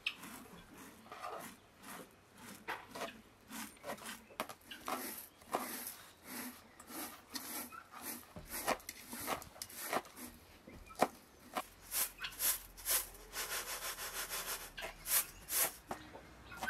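Food-preparation handling sounds: dry rice grains being picked over in a metal tray and fresh herbs being chopped with a cleaver on a wooden board. They come as short knocks and rubs, uneven at first, then a quicker, denser run of strokes in the later part.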